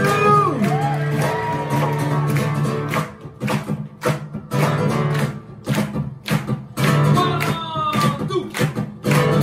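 Live Okinawan folk-pop band playing: two acoustic guitars strumming a steady rhythm along with a sanshin, and a voice singing.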